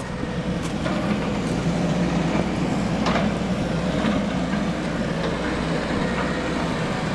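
A large tracked excavator's diesel engine running steadily under load while it digs a trench, with a few sharp metallic clanks from the bucket and tracks.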